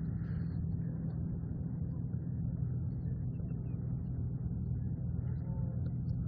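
Small motor on an inflatable pontoon boat running at a constant speed, a steady low hum.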